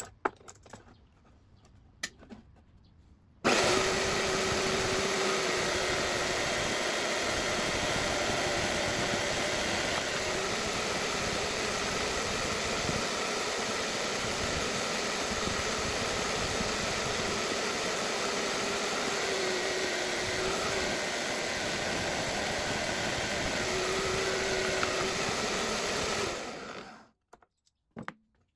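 A few light clicks, then a steady whirring, rushing machine noise with a faint wavering hum, starting suddenly a few seconds in and cutting off shortly before the end.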